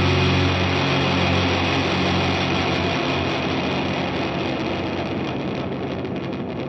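The closing sustained wash of a heavy rock track: dense distorted noise over a held low note, slowly fading down.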